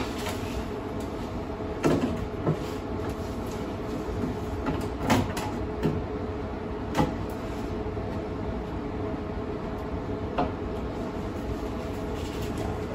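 Metalwork at a car's rocker panel: a steady hum with a few short, sharp clicks and knocks spaced a few seconds apart.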